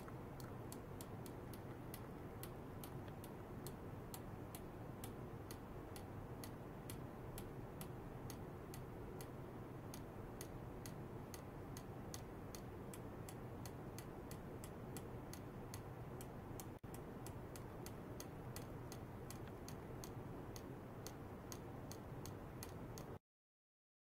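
Faint, even ticking, about two to three short high ticks a second, over a steady low hum; it all cuts off suddenly near the end.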